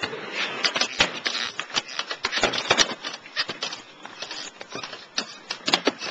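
Skateboard on a plywood backyard mini ramp: wheels rattling on the wood, with a busy run of irregular clacks and knocks from the board. Sharp strikes come about a second in, near three seconds and near six seconds.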